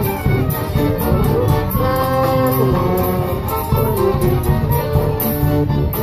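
Live acoustic street band playing a tune on accordions, clarinet, flute and fiddles over a bass drum and snare keeping a steady beat.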